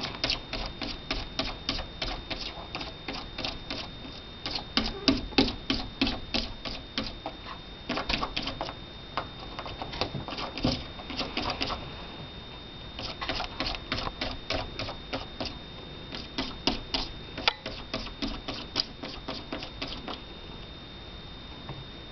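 A calico cat's paws and claws tapping rapidly against a window pane, about four or five taps a second, in bursts of a few seconds with short pauses between.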